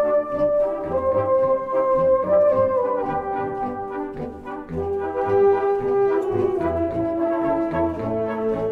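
A fanfare band of brass instruments playing a march: sustained brass chords moving in steps over a steady low beat, about two pulses a second.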